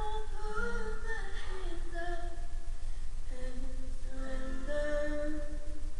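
A young woman singing a slow song in long held notes with musical backing, played through a television's speaker; the voice breaks off briefly near the middle and comes back.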